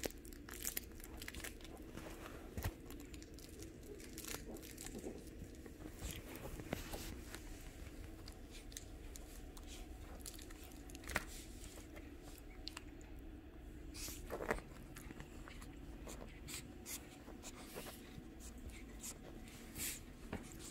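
Shih Tzu puppies tussling on a fabric dog bed and mouthing at a hand: scattered small rustles, scuffs and nibbling clicks, over a faint steady hum.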